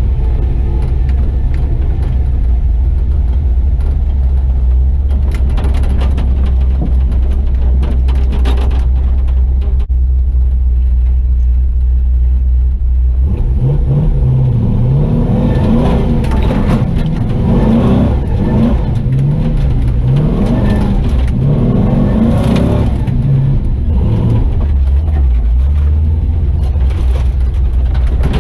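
Chevy truck's swapped-in 6.0-litre LY6 V8 engine running under load. It holds a steady low drone, then from about halfway the revs rise and fall again and again, with scattered rattles.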